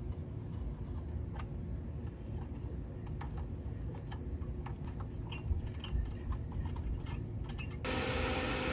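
Irregular small clicks and taps of a screwdriver turning the mounting screws of replacement power output transistors on an amplifier's heatsink. Near the end a steady hiss with a faint hum comes in abruptly.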